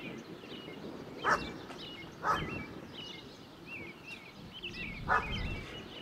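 A dog barking three times, the last bark a little longer, with small birds chirping throughout.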